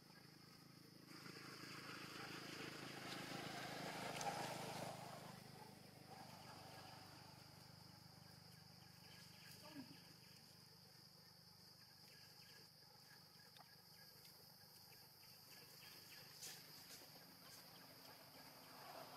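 Faint outdoor ambience: a steady high-pitched insect drone, with a louder swell of rustling noise that peaks about four seconds in.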